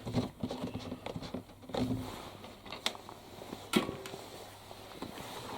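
Faint handling noise: a few light clicks and knocks, the two clearest about three and four seconds in, over a low steady hum.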